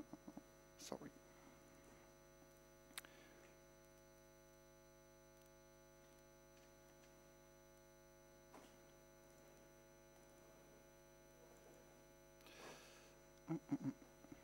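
Near silence: a steady electrical mains hum with many even overtones, broken by a few faint clicks.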